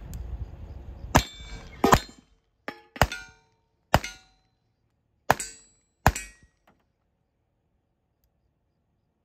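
About seven sharp handgun shots fired in quick succession from a pickup's window, some with a short metallic ring after them from steel targets being hit. Under the first shots the truck's engine and tyres on dirt fade out as it rolls to a stop.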